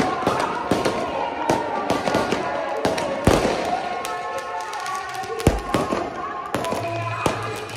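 Aerial fireworks bursting in an irregular string of sharp bangs, several a second, with the heaviest bangs about three and five and a half seconds in.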